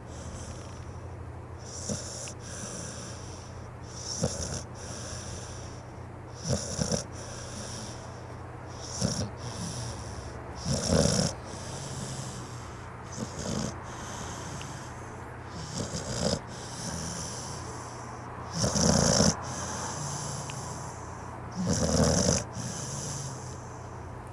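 Pit bull snoring in its sleep, one snore every two to three seconds, some much louder than others, over a steady low hum.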